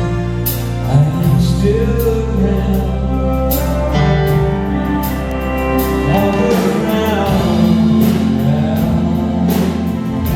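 Live band music: sustained guitar and bass chords over drums keeping a steady beat, with sliding, gliding notes around the middle.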